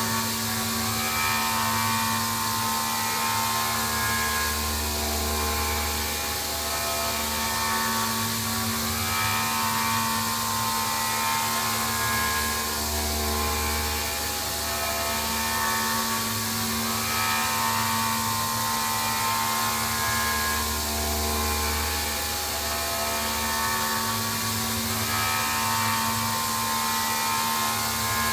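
Rottler P69AHD five-axis CNC machine porting an aluminium Subaru EJ25 cylinder head: the spindle's steady whine over an even hiss, with a low hum that swells and eases every few seconds as the cut goes on.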